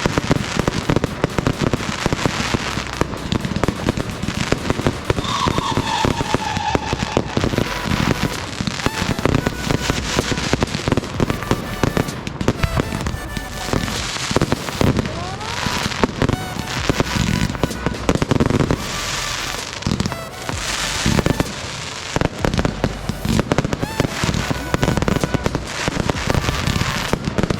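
A fireworks display: a rapid, continuous run of bangs and crackles from exploding aerial fireworks, with a short tone falling in pitch about five seconds in.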